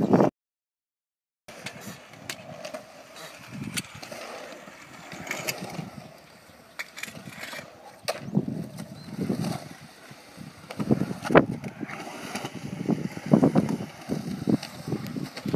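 Skateboard wheels rolling on concrete, the rumble swelling and fading in repeated surges, with sharp clicks and knocks from the board. The sound cuts out completely for about a second just after the start.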